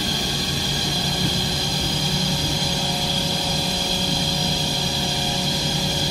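Industrial machinery running steadily: an even mechanical hum and hiss with a constant high whine on top.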